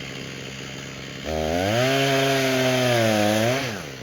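Gasoline chainsaw running low, then throttled up about a second in and held at high revs for over two seconds, the pitch sagging slightly in the middle, before dropping back to a low run near the end.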